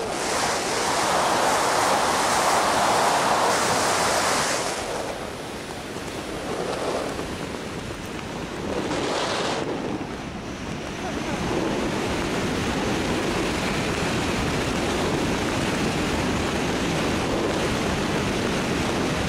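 Wind rushing and buffeting over the camera microphone during a tandem parachute descent under an open canopy. It is loudest for the first few seconds and again in a short gust about nine seconds in, then settles into a steady rush.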